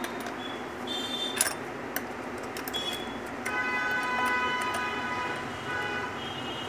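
A few light metallic clicks and taps as a steel clamp plate and screwdriver are handled against a buttonhole machine's head, over a steady background hum. About halfway in, a steady pitched tone with several overtones sounds for about two seconds.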